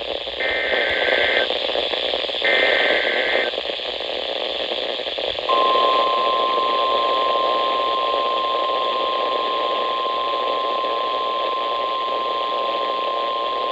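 NOAA Weather Radio emergency alert coming in through radio hiss: two one-second bursts of the SAME header's two-pitched digital data tones. After a pause of about two seconds, the steady single-pitched 1050 Hz warning alarm tone starts about five and a half seconds in, announcing that a weather warning message follows.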